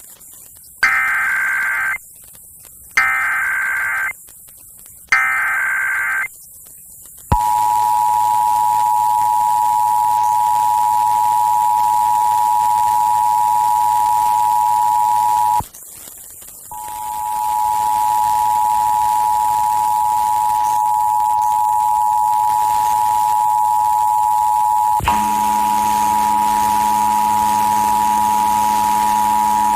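Emergency Alert System test over FM radio: three short bursts of screeching digital SAME header data, then the steady two-tone EAS attention signal. The attention signal drops out briefly about 16 seconds in and then resumes.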